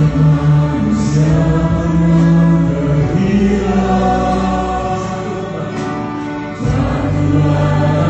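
Live church worship song: a small group of singers with a string, saxophone and piano ensemble backing them. The music eases a little past the middle, then swells back up near the end.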